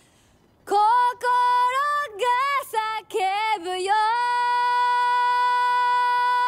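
A young woman singing solo and unaccompanied in Japanese, at full voice. Under a second in she sings a short phrase of gliding notes, then holds one long high note steady.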